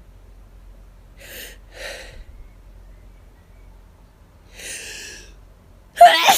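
A person with hay fever breathing hard between sneezes: two short breaths, a longer breath a few seconds later, then a sudden loud sneeze bursting out near the end.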